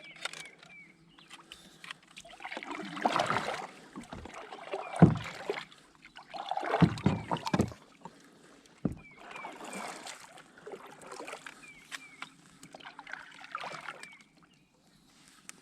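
Kayak paddle strokes splashing in the water, one about every one and a half to two seconds, with a few low knocks against the hull.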